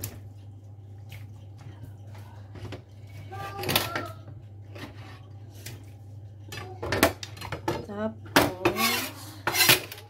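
Chef's knife knocking and scraping on a wooden cutting board as fat is trimmed off a raw whole chicken, with several sharp knocks in the second half, over a steady low hum.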